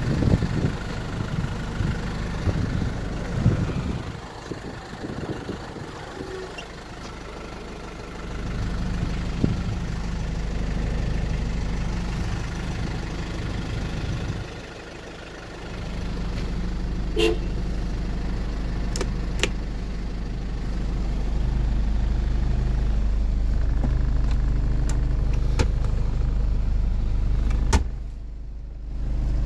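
Isuzu Bighorn's 2.8-litre 4BJ1-T turbo-diesel engine idling steadily, heard from inside the cab, with scattered clicks and knocks from handling in the cab.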